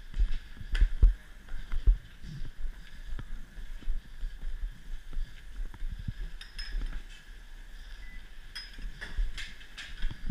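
Footsteps in ski boots on a stone floor, heaviest in the first two seconds, with a few sharp clicks after about six seconds, over a faint steady hum.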